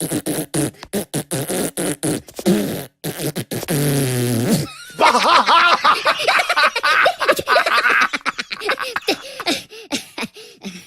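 Comic fart sound effects: a quick run of short bursts, then one long low fart about four seconds in. These are followed by several seconds of high-pitched, squeaky cartoon-style voices.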